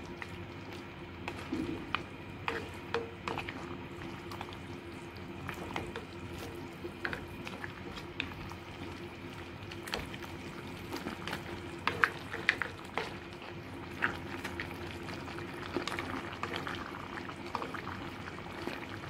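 Chicken and shiitake mushroom stew simmering in a clay pot, bubbling and sizzling, while a ladle is worked through it, clicking and scraping against the pot and the food. A faint steady hum runs underneath.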